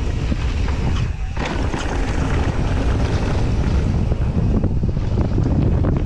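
Wind buffeting the microphone over the rumble of mountain bike tyres rolling fast on loose dirt and gravel, with many small clicks and rattles from the bike and stones. A brief lull in the higher sounds comes about a second in.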